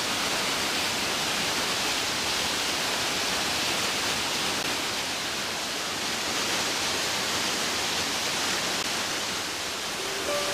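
Waterfall: water pouring and splashing over rock ledges in a steady, even rush.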